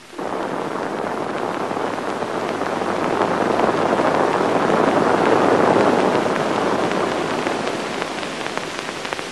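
Rushing whitewater of river rapids, a steady roar of water that comes in suddenly, swells to its loudest midway and then eases off.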